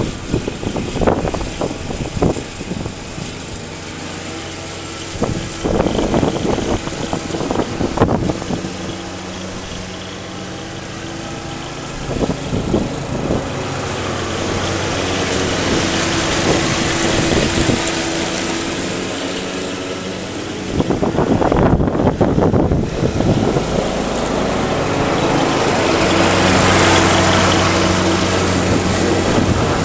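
Riding lawn mower's engine running steadily while mowing, growing louder as the mower comes up close near the end. Irregular thumps of wind on the microphone in the first several seconds.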